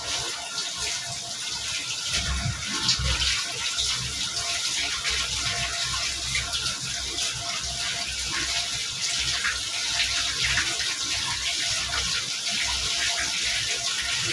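Kitchen tap running into a stainless steel sink as vegetables are rubbed and rinsed by hand under the stream: a steady rush of water with small irregular splashes.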